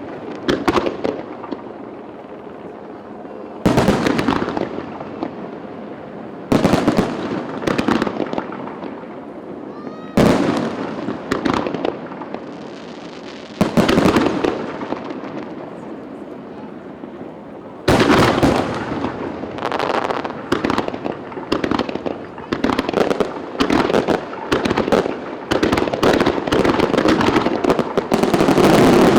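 Aerial firework shells bursting with a loud bang every three to four seconds. About two thirds of the way in this turns into a rapid barrage of overlapping bursts and crackling.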